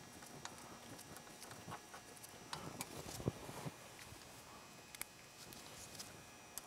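Faint, scattered metal clicks and taps from an Allen wrench and small bolts being handled and fitted as the two 5 mm Allen bolts go into an ATV's rear brake master cylinder mount. The taps cluster around the middle.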